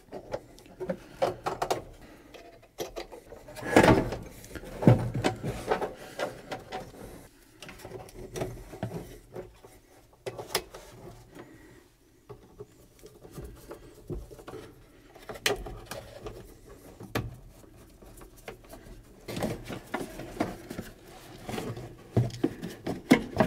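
Hands at work under a truck dashboard: scattered clicks, rustles and knocks as wire connectors are plugged on and the heater box is shifted into place. A few knocks stand out, the loudest about four seconds in.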